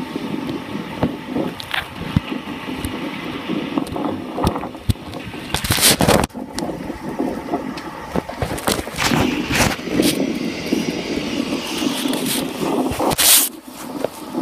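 A DRS diesel locomotive approaching with its engine running, heard as it plays from a screen's speaker and is re-recorded by a phone, so the sound is thin. Loud scraping noises come over it about six seconds in and again near the end.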